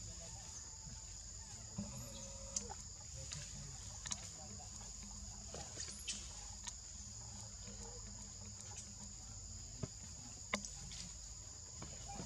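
A steady, high-pitched drone of an insect chorus, with a few faint, scattered clicks and taps.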